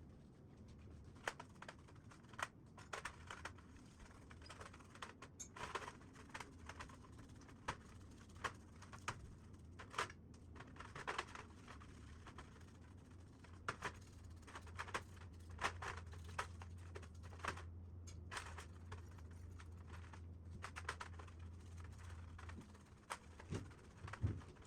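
Irregular light clicks and taps of small parts or tools being handled, with a low steady hum in the second half that stops near the end.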